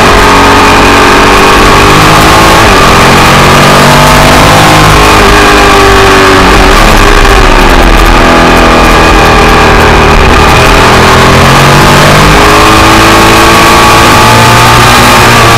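Ducati Monster 1100 EVO's air-cooled L-twin engine running hard on track, its revs falling and climbing again several times as the rider brakes, shifts and accelerates through corners, over a steady rush of wind noise.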